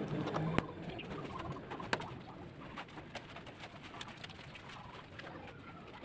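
Two sharp plastic clicks, about half a second in and again near two seconds, as a screw-hole cap is pressed into the washing machine's plastic top panel, with a pigeon cooing low in the background.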